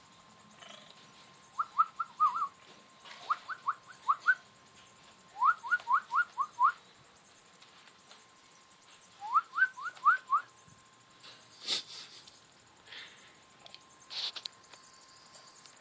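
Young raccoon chirping: four bursts of quick, short rising chirps, four or five to a burst, spread through the first ten seconds. Two sharp clicks follow near the end, with a faint steady tone underneath.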